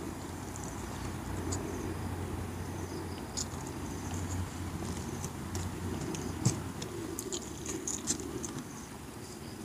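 Close-up eating sounds of a man chewing and smacking his lips over mouthfuls of rice and fish eaten by hand, with scattered small clicks and one sharp tap about six and a half seconds in, over a steady low hum.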